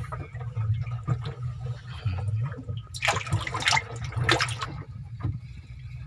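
Water splashing and sloshing in a bin of freshly caught live fish, with the loudest splashes about three and four seconds in, over a steady low hum.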